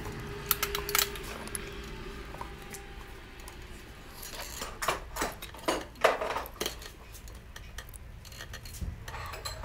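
Light metal clicks and clinks as steel-backed main bearing shells are snapped into the engine's main bearing caps by hand: two sharp clicks about half a second and a second in, then a cluster of clinks around the middle.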